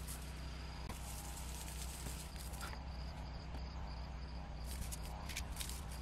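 Insects trilling in the grass, a steady high pulsing buzz, with a few brief rustles of leaves and grass about a second in and again near the end.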